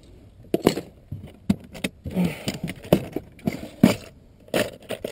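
Plastic tackle box being opened and rummaged through: hard plastic clacks, and metal lures and hooks clinking in the trays. It comes as irregular sharp clicks, the loudest about four seconds in.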